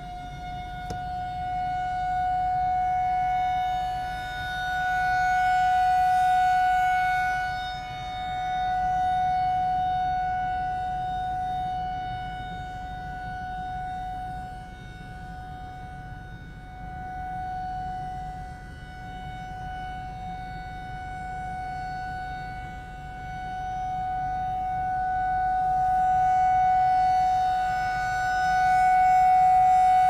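Federal Signal 2001-SRNB outdoor warning siren sounding a steady single tone during a scheduled test, its loudness swelling and fading every few seconds.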